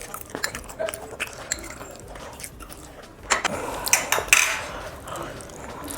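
Cutlery and dishes clinking and clattering as food is handled at the table, with a louder flurry of clatter a little past halfway.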